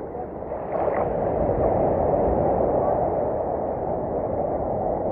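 Shallow sea water sloshing and washing around a person wading, a steady rush that grows louder about a second in.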